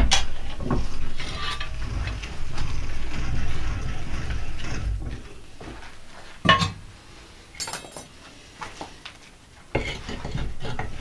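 Metal clanks and knocks of steel parts being handled at a bench vise: a sharp clank at the start and another about six and a half seconds in, with low rubbing and rumbling between and a few lighter clicks.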